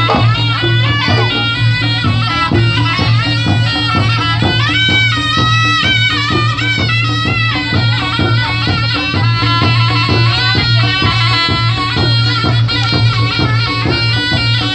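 Reog Ponorogo gamelan accompaniment. A reedy slompret (double-reed shawm) plays a wavering, bending melody over drum strokes and a steady low pulsing tone.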